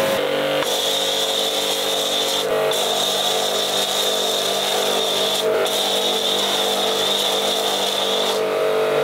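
Kärcher electric pressure washer running and spraying snow foam through a foam cannon: a steady motor hum under a loud spray hiss. The hiss drops out briefly about four times while the hum carries on.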